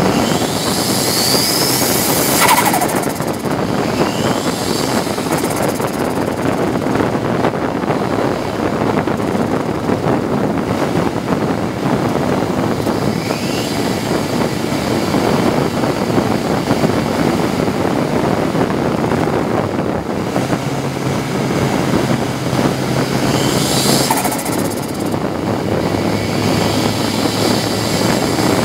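Ford Sierra RS Cosworth race car's turbocharged four-cylinder engine running under load at speed, heard from inside the stripped cabin together with wind and road noise. Brief whistles falling in pitch come near the start and again near the end.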